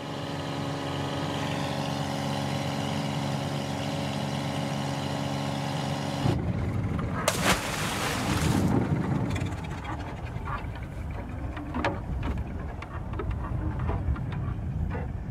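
Long-tail boat engine running steadily at a constant speed. About six seconds in it cuts off abruptly to splashing water and wind noise, with a couple of sharp knocks soon after.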